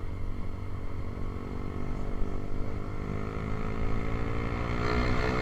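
Honda CB150R's single-cylinder engine running through an aftermarket Ronin exhaust, its engine speed climbing slowly over the second half.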